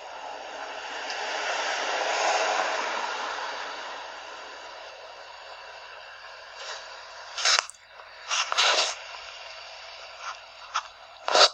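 Steady hiss of wind-driven rain on a phone's microphone, swelling about two seconds in and then easing. It is broken later by several short, sharp rustling bursts, the loudest near the end.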